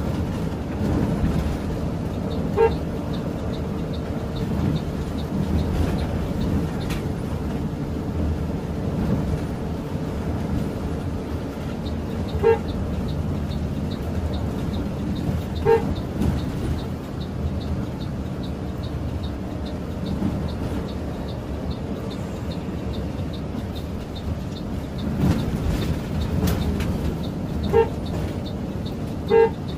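Steady engine and road noise of a Mercedes-Benz OH 1626 coach under way, broken by five short horn toots, two of them close together near the end.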